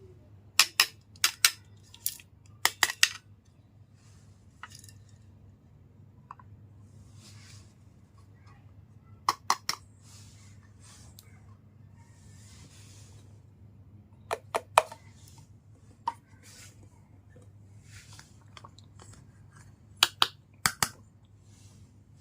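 Sharp clicks and taps of small hard objects being handled and set down, in quick clusters of two to four every few seconds, with soft rustling between them over a low steady hum.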